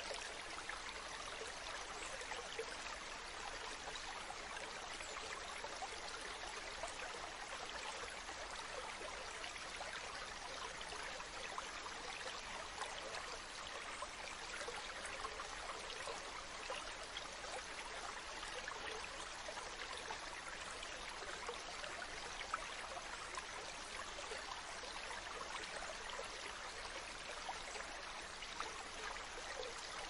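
Fast-flowing river rushing through a narrow rocky channel: a steady, even rush of whitewater, mostly hiss with little low rumble.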